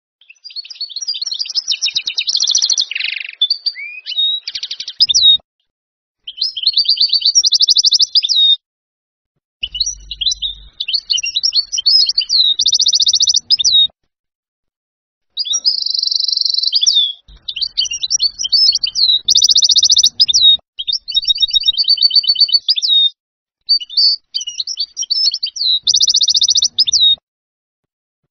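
European goldfinch singing Levantine ('Shami') style song: rapid twittering, buzzy notes and fast rattling trills, set out as about six separate phrases with abrupt silent gaps between them.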